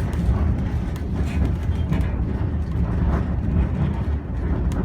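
White Pass and Yukon Railroad narrow-gauge passenger train running, a steady low rumble of the coach on the rails with a few light clicks.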